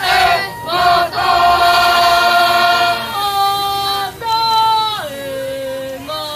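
Tongan choir of children and adults singing in harmony. A loud full chord is held for the first few seconds, then sustained notes step down in pitch in a few stages toward the end.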